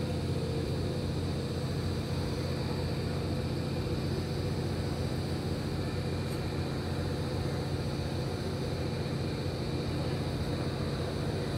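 A steady low rumble with a constant hum.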